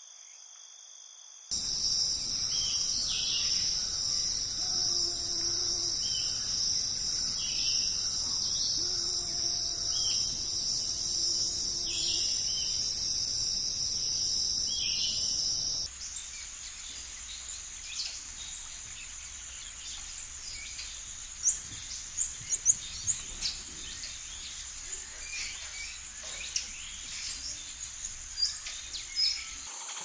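Steady high-pitched drone of an insect chorus with short bird calls over it. About halfway through it gives way to a higher insect drone with many quick bird chirps.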